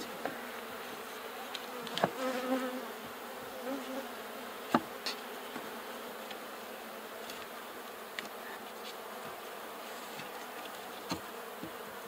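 Honeybees buzzing steadily around an opened hive, with a few sharp wooden knocks, the clearest about five seconds and eleven seconds in, as frames and cover boards are set back in place.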